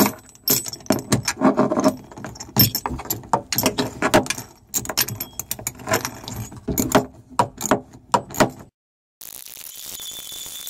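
Metal clinking and rattling from a hand tool turning a nut onto a bolt from underneath, a quick irregular string of sharp clicks. About 8.7 s in it cuts off abruptly and a steady faint hiss follows.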